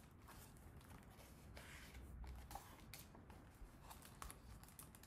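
Faint rustle and a few soft ticks of a hardcover picture book's page being turned and the book being handled, otherwise near silence.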